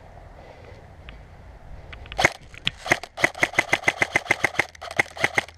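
Airsoft gun firing: a single shot about two seconds in, then a rapid burst of sharp cracks at roughly nine a second, a short pause, and another short burst near the end.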